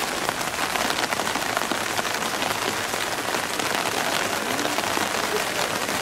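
Heavy rain falling steadily on wet pavement: an even, dense hiss of drops.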